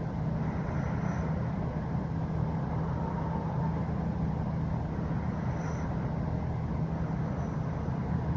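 Steady low rumble of a running vehicle, with no speech or music over it.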